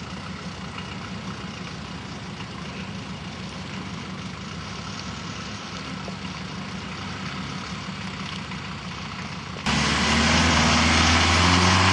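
1973 Land Rover 109 engine running steadily as the vehicle crawls through mud. About ten seconds in the engine abruptly becomes much louder and closer.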